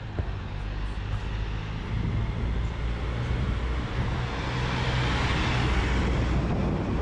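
A box truck passing close by on the street: its engine hums steadily while the noise of the passing vehicle swells, loudest about five to six seconds in.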